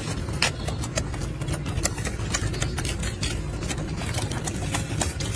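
Golden snub-nosed monkey eating lettuce leaves close up: many quick, crisp crunching and tearing clicks over a steady low rumble.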